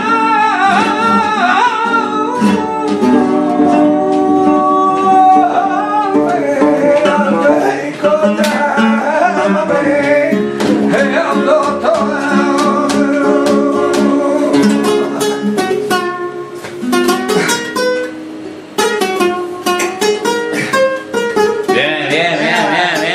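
A man singing a flamenco seguiriya in long, wavering, ornamented lines to flamenco guitar accompaniment. Later the guitar comes to the fore with fast strummed chords.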